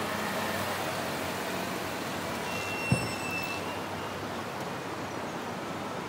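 Steady running noise of a car rolling slowly. There is a single sharp knock about halfway through, with a brief high squeak around the same moment.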